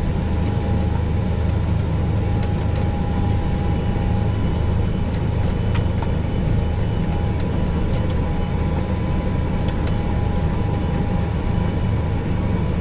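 240-horsepower tractor's engine running steadily under load as it pulls a Kverneland round baler, a constant low drone with a faint steady whine above it, heard from inside the cab.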